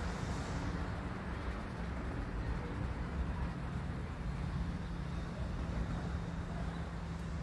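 Steady low mechanical rumble with a constant hum, like a running engine.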